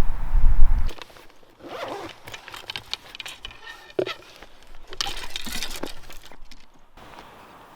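A zipper pulled twice, about two seconds in and again around five seconds in, with rustling and small clicks of handled gear between. Wind buffets the microphone with a low rumble for the first second.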